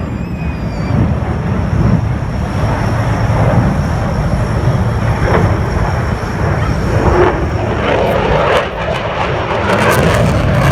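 Aircraft engine running: a steady deep rumble with a thin high whine, growing rougher with more mid-range noise from about halfway through.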